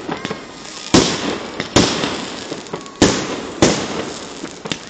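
Fireworks display: aerial shells bursting in quick succession, five sharp bangs in under four seconds, each trailing off.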